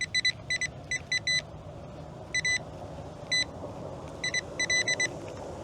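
Nokta Triple Score metal detector giving short, high target beeps in quick clusters as the coil sweeps over buried coins, all at the same pitch. A faint steady low hum runs underneath.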